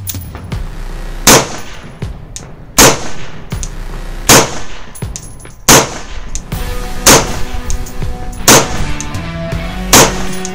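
AR-15-style rifle firing M193 5.56 mm 55-grain full metal jacket rounds, seven shots at a steady pace of about one every second and a half.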